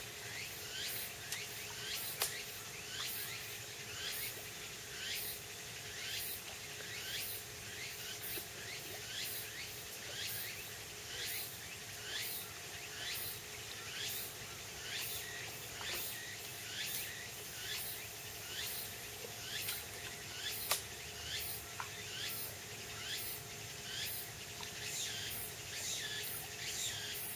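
Chorus of calling insects, a steady rhythmic run of short chirps at about two a second, with a couple of sharp clicks partway through.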